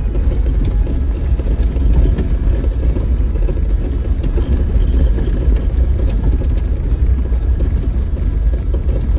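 Off-road vehicle driving along a rough dirt trail: a steady low engine and road rumble with scattered light knocks and rattles.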